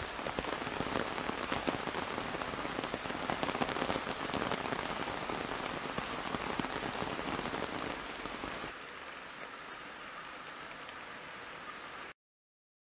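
Rain falling on an open umbrella's fabric canopy: a dense, steady hiss of many small drop ticks. It softens about nine seconds in and cuts off abruptly near the end.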